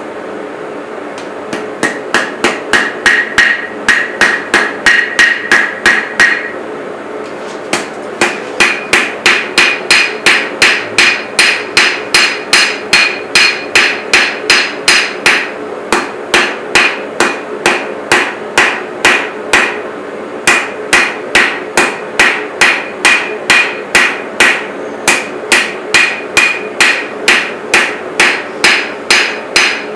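Blacksmith's hand hammer forging a chef's knife blade on an anvil: steady rhythmic blows at about two to three a second, each leaving a short metallic ring, in runs broken by brief pauses. A steady hum runs underneath.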